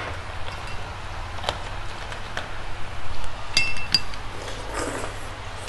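Eating utensils clinking against dishes during a meal: a few light clicks, then two ringing clinks a little after halfway.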